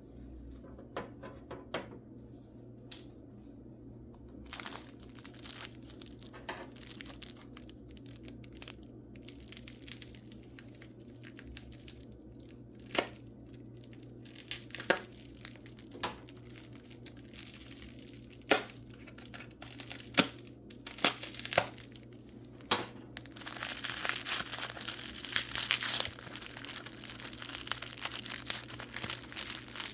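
Wrapping paper crinkling and tearing as mineral specimens are unwrapped: scattered sharp crackles at first, then continuous crumpling over the last several seconds.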